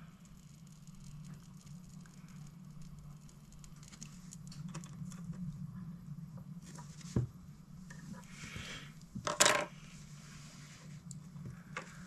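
Quiet clicks and small handling noises from a disposable lighter and fishing line being worked by hand as the trimmed tag end of a knot is melted, over a faint steady hum. A sharper click comes about seven seconds in and a louder short scrape about nine and a half seconds in.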